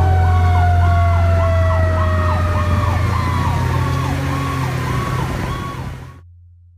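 Fire truck sirens heard from inside the moving cab: a siren yelping up and down about twice a second, over a second, lower tone that slides slowly downward, with a strong steady low engine drone beneath. The sound cuts off abruptly near the end.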